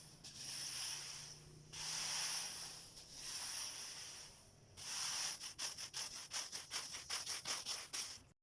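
Loose unhusked rice grains (palay) being handled in rhythmic strokes: three swishing rustles about a second long each, then from about five seconds in a quick run of many small ticks, like grains scattering and landing. A faint steady hum sits under the first half.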